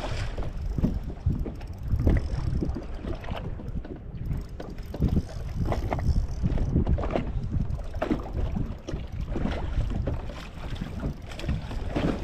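Wind buffeting the microphone over water slapping irregularly against a boat's hull.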